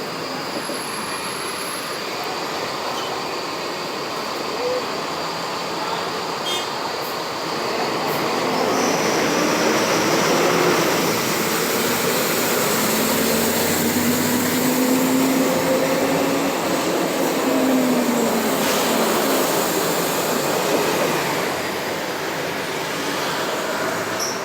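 Mercedes-Benz O500 UDA articulated diesel bus with a Voith automatic gearbox, running along. It gets louder about a third of the way in, with an engine and transmission whine that rises as the bus pulls, then falls away near the end.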